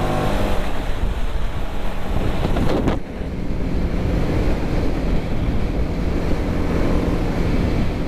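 Wind rushing over the microphone of a moving motorcycle, with the TVS Apache RR310's single-cylinder engine running beneath it as the bike slows from highway speed. Near three seconds in there is a short, sharp sound and the level dips briefly, then the engine note settles lower and steady.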